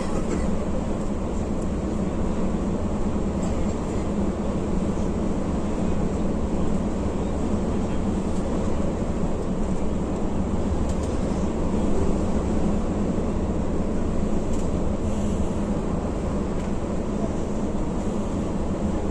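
Steady engine drone and road noise inside a Mercedes-Benz intercity coach cruising at highway speed, with a constant low hum under it.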